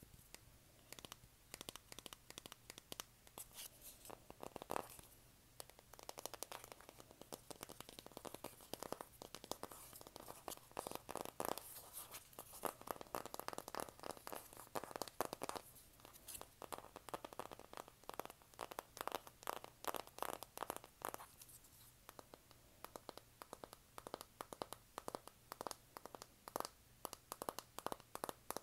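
Long fingernails tapping and scratching rapidly on the cardboard box of a makeup palette, a dense run of quick light clicks that comes and goes in busier spells.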